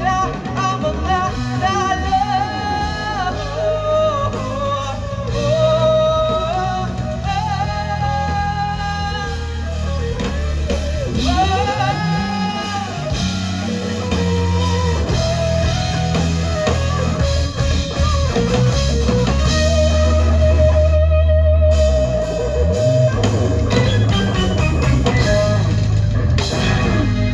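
Live rock band music: a lead guitar melody with wavering vibrato over bass, drums and keyboards, the song's closing passage.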